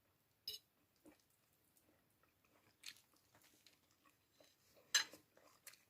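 Close-miked eating sounds: a person chewing, with a few sharp clicks. The loudest click comes about five seconds in.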